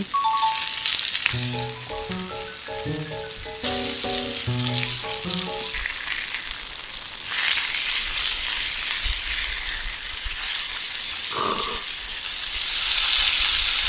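Salmon steaks sizzling in oil in a hot frying pan over a portable gas burner. The sizzle grows louder about seven seconds in. A short tune of stepped notes plays during the first few seconds.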